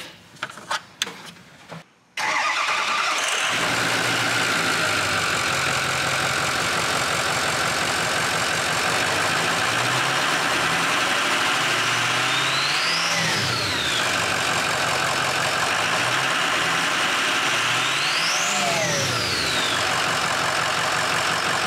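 Ford 6.0L Power Stroke V8 turbo diesel running on a newly fitted KC Stage 2 upgraded turbo. The engine comes in suddenly about two seconds in and runs steadily. It is revved briefly twice, near the middle and near the end, and each time a high turbo whistle rises and falls.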